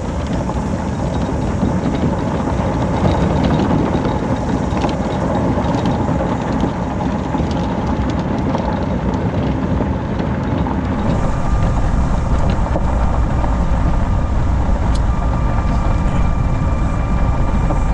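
Golf cart driving along a gravel path: steady, rough running noise from the open cart. About eleven seconds in the sound changes to a heavier rumble with a steady whine over it.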